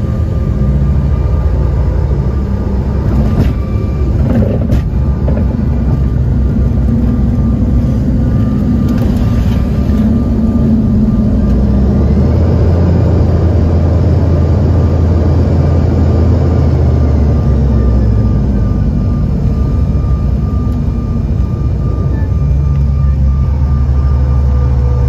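Cabin noise of a CRJ-550 regional jet rolling on the runway: its rear-mounted turbofans run under a heavy, steady rumble with a thin constant whine. There are two short knocks about 3.5 and 5 seconds in, and the low rumble swells from about 12 to 18 seconds.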